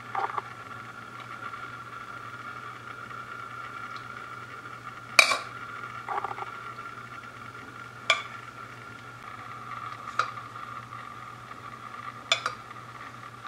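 Kitchenware clinking: about six sharp, separate knocks of utensils on dishes or a tray, the loudest about five seconds in and a quick double near the end, over a steady hum.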